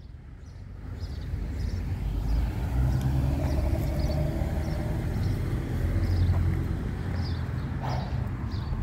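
Footsteps walking on asphalt, a little over one step a second, over a steady low rumble.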